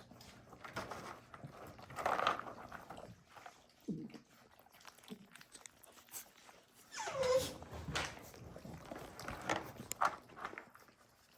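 American bully puppies whining and yelping in short cries, one a drawn-out yelp that falls in pitch about seven seconds in.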